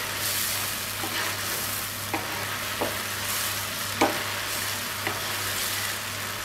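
Spice paste and coconut milk sizzling and bubbling in hot oil in a pan as a spatula stirs it, with a few light knocks of the spatula on the pan, the clearest about four seconds in. This is the masala being fried down (koshano) before the prawns go in.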